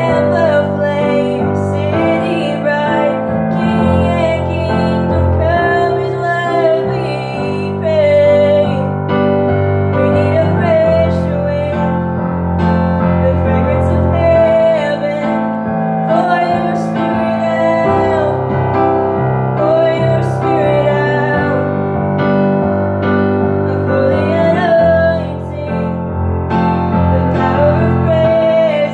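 A young woman singing a slow song with vibrato, accompanying herself on a digital piano with sustained chords.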